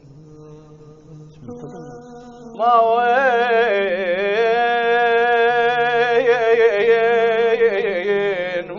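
A singer holding one long, wavering melismatic note of an Arabic lament chant over a steady low drone. The voice comes in loudly about two and a half seconds in, after a quieter stretch.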